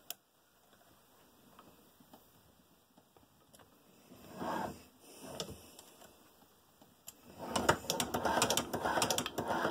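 Quiet handling of a small metal tool at the cam of a hand-crank leather sewing machine, its set screw just tightened with an Allen key. Near the end come a run of rapid clicks and metallic clattering as the machine's parts are handled.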